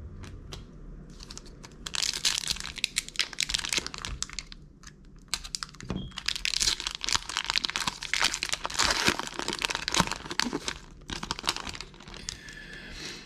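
Foil trading-card pack wrapper being torn open and crinkled in the hands, in two long spells of crackling with a shorter one near the end.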